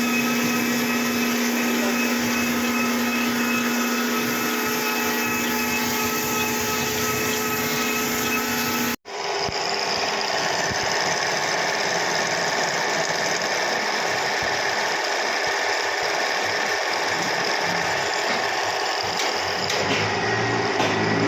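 Machine-shop machinery running steadily: a motor-driven machine hums with a steady whine, then after a sudden break about nine seconds in, a different, harsher steady machine noise carries on.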